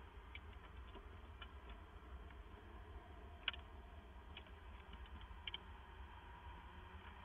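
A few faint, sharp clicks and taps from a barn owl moving about in a wooden nest box, the loudest about three and a half seconds in, over a low steady hum.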